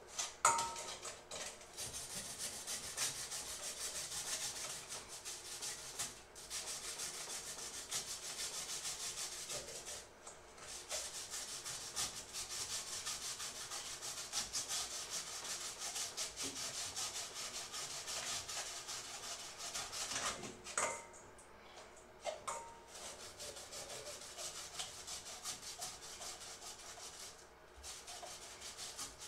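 Food being grated by hand on a cylindrical stainless-steel mesh grater: a steady run of rasping strokes, broken by a few short pauses, with a sharp clink about 21 seconds in.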